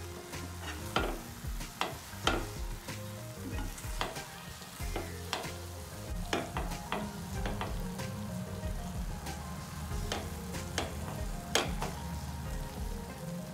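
Silicone spatula stirring and scraping scrambled eggs and tomato in a nonstick frying pan: irregular scrapes and taps against the pan over a light sizzle and a steady low hum.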